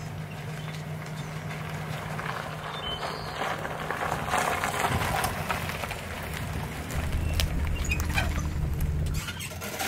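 Toyota Tundra pickup driving past at low speed, towing a bass boat on its trailer: a steady engine note with tyre noise and trailer rattles, loudest around the middle. From about seven seconds in, a louder low road rumble takes over.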